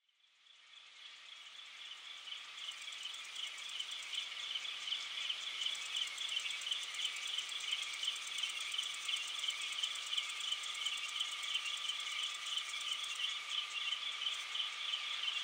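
A chorus of chirping insects like crickets, a steady, rapidly pulsing trill that fades in from silence over the first couple of seconds.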